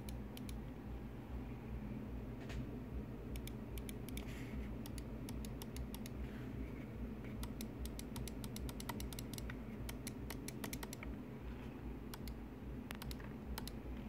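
Logitech G403 Prodigy gaming mouse buttons clicking: a few single sharp clicks, then runs of fast repeated clicks. A steady low hum runs underneath.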